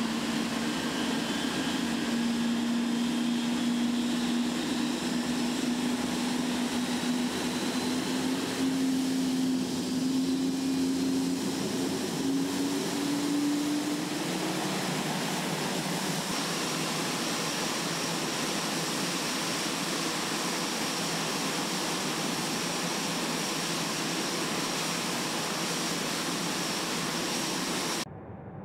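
Rolls-Royce Trent 1000 turbofan on a Boeing 787 running up during an engine start: a steady rush of noise with a low hum that slowly rises in pitch over the first half, then a thin high whine as it runs on. The sound cuts off near the end.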